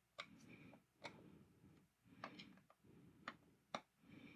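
Several faint, sharp clicks at uneven intervals, the kind made by flipping the small light switches on a wooden busy board toy, with light handling rustle in between.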